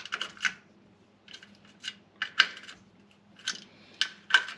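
Small socket ratchet clicking in five short bursts as the 10 mm nuts on a VW Beetle's oil strainer cover plate are snugged down by hand.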